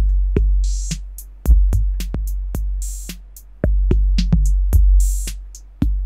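Electronic drum-machine beat run through an Elektron Analog Heat MKII: a deep kick with a long low tail about every two seconds, fast ticking hi-hats, and a hissing cymbal between the kicks.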